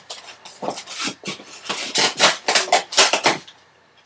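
Rubbing and rustling of foam packaging inside a cardboard box as parts are worked loose and lifted out, a run of short scrapes that stops near the end.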